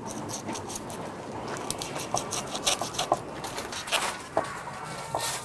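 A large kitchen knife cutting through a whole tuna on a wooden chopping board: a run of short, irregular wet cutting and scraping strokes as the blade works through the flesh behind the head.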